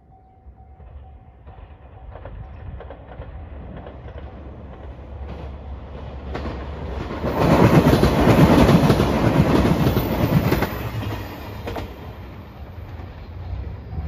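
JR Shikoku 2700 series diesel limited express, a three-car train, passing close by. Its noise builds from a couple of seconds in, is loudest for about three seconds in the middle as the cars go past, then fades as it pulls away.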